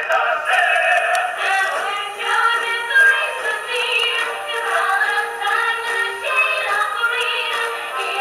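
Musical-theatre song with sung vocals and accompaniment, played back through small computer speakers, so it sounds thin with almost no bass.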